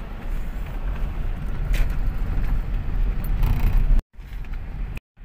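Car cabin noise while driving: a steady low rumble of engine and tyres on the road, with a few faint rattles. The sound cuts out abruptly twice near the end.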